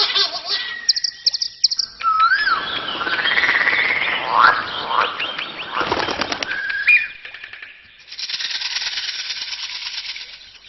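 Bird calls: chirps, whistled notes and rising squeaks in short clips that change abruptly about two and eight seconds in, ending in a steady high rushing sound.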